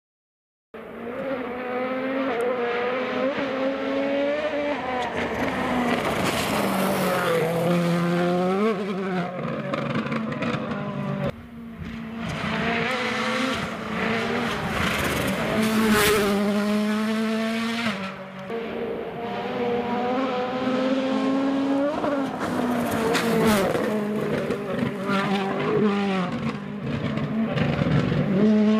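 Ford Fiesta WRC rally car's turbocharged 1.6-litre four-cylinder engine revving hard on a series of flat-out passes, its pitch climbing and dropping again and again through gear changes. The sound cuts abruptly between passes about a third of the way in and again past halfway.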